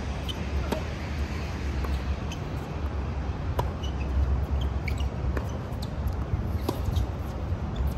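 Tennis ball struck by rackets in a rally, starting with a serve: sharp pops every second or two, over a steady low rumble.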